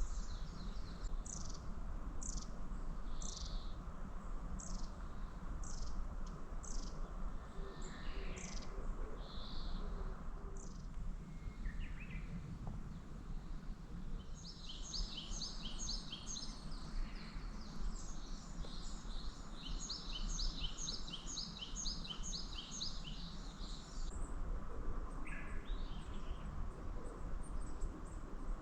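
Small songbirds chirping: scattered short high calls, then a fast run of repeated chirps lasting about ten seconds from around the middle. A steady low background hum of outdoor noise runs underneath.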